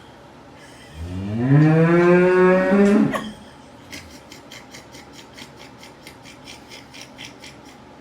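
A man snoring loudly: one long, drawn-out snore that rises in pitch, holds, and cuts off, followed by a run of soft quick clicks at about five a second.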